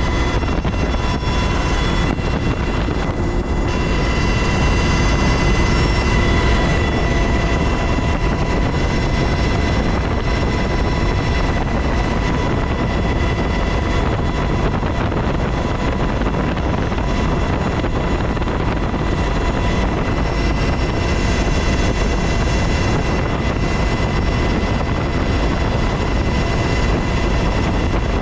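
UH-60 Black Hawk helicopter in flight, heard from inside the cabin with the side door open: the steady, loud rumble of the rotors and twin turboshaft engines, with a constant high whine over it.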